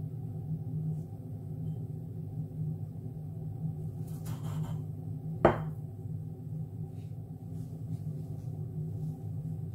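A drinking glass pressed and twisted into soft dough with a short rustling scrape, then set down on the hard worktop with one sharp glassy knock about five and a half seconds in. A steady low hum runs underneath.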